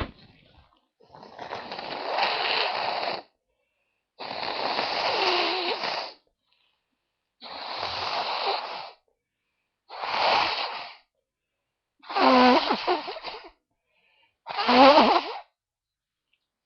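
A person blowing their nose hard six times in a row, each blow lasting one to two seconds. The last two are the loudest and end in a wet, honking pitch.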